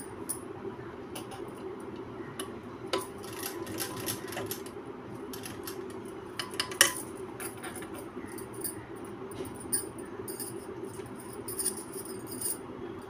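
Electric sewing machine running steadily as it stitches gathered fabric, with glass and metal bangles on the sewing hand clinking in irregular sharp jingles, the loudest about seven seconds in.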